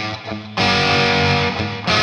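Distorted electric guitar played through an EVH 5150III Lunchbox 15-watt tube head and 2x12 cabinet, with delay and reverb effects. A ringing note fades away, the guitar is struck again about half a second in and sustains, and it is struck once more near the end.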